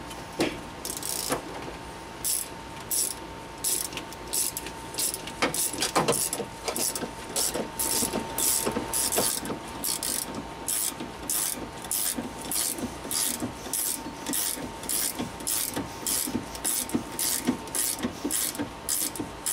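Hand ratchet with an extension clicking in short rasps on its back-swings as it runs down the rear shock's upper mount nut. The strokes come slowly at first, then settle to about two a second.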